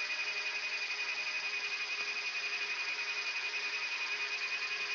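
Yak-42D cockpit voice recorder background: a steady high-pitched whine over hiss, with a fainter low steady hum and a fast, even flutter in level.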